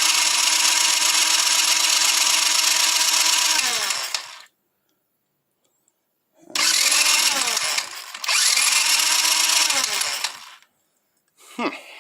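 Kazuma Meerkat ATV's electric starter cranking the engine with the spark plug out for a compression test: two runs of about four seconds each, each whirring up to speed and winding down. The gauge reads lower than it should. A short click comes near the end.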